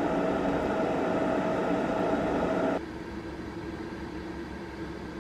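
Steady machine hum and hiss with a faint high whine, cutting abruptly to a quieter, lower hum about three seconds in.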